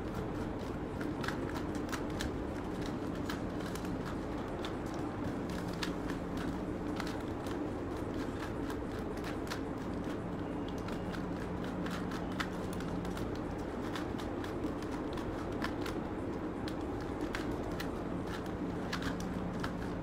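A 3×3 Rubik's cube being solved by hand: its plastic layers turned in quick runs of irregular clicks and clacks, over a faint steady hum.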